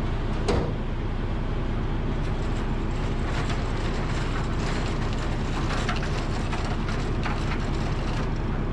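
Heavy tow truck's engine running steadily, with a sharp clank about half a second in and scattered metal clinks of chains and rigging.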